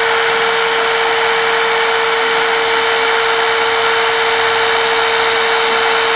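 Hurst eDraulic 3 battery-powered hydraulic rescue cutter running, its electric motor and hydraulic pump giving a steady, loud whine as the blades close together.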